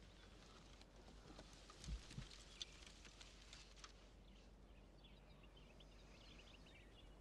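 Faint outdoor quiet with birds chirping now and then, and two soft low thuds about two seconds in.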